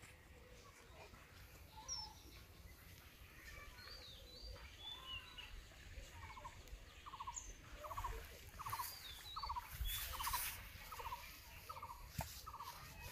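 Outdoor ambience of birds chirping. From about halfway through, a short trilled call repeats at an even pace, a little under twice a second.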